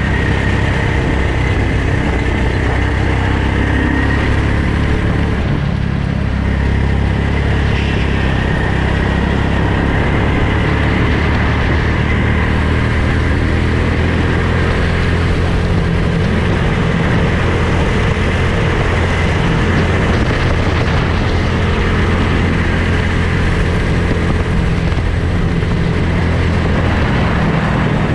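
Go-kart engine running steadily at speed, heard from the driver's helmet camera.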